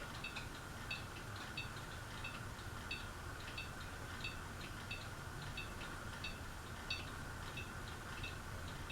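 Ceiling fan running on low speed: a steady low hum with light metallic clinking ticks repeating about two to three times a second.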